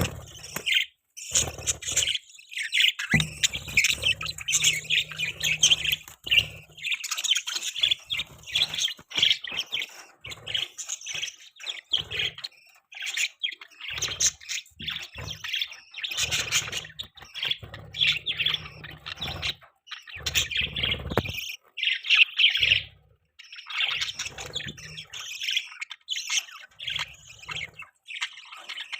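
Budgies (budgerigars) chirping and warbling in rapid, overlapping calls with brief pauses.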